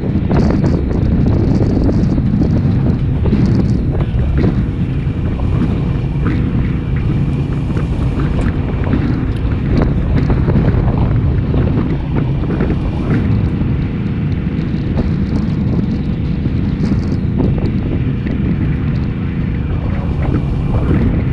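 Grass-fire rig moving across rough pasture: its engine runs under heavy wind buffeting on the hood-mounted microphone, with scattered clicks and knocks.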